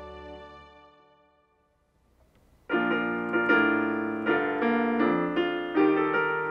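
Soft background music with held tones fades out over the first two seconds. After a brief pause, a Yamaha digital piano starts playing chords about two and a half seconds in, the introduction to a song.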